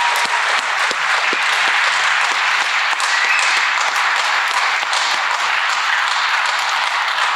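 Auditorium audience applauding, a steady dense clapping that holds at an even level.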